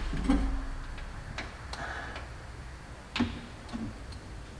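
A 3/8-inch ratchet with a 14 mm socket working loose the drain plug on a Kubota L4701 tractor's rear axle housing: several separate clicks, irregularly spaced.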